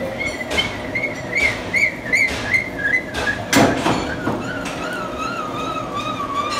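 Metal lathe turning a round bar, the cut throwing off spiral chips, with a high squealing tone from the cut that wavers and slowly drops in pitch. A brief loud clatter comes about three and a half seconds in.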